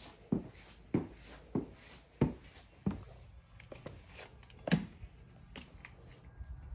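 Footsteps on a hard tiled floor, a regular walking pace of about one and a half steps a second, thinning to two more spaced steps in the second half as the walker moves out into a garage.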